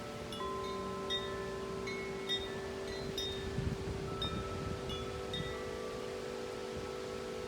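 Wind chimes ringing in the wind, struck irregularly a dozen or so times, their long ringing tones overlapping. A gust rumbles on the microphone about halfway through.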